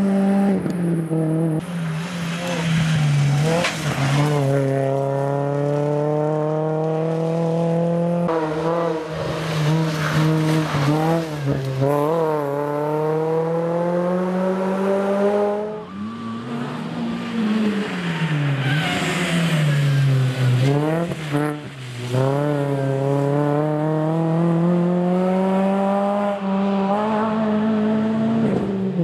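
Rally car engine at full throttle, heard from the roadside as the car pulls away along the stage. The revs climb and drop back with each quick gear change. In the middle the engine note sinks and rises again as the car slows for a corner and powers out of it.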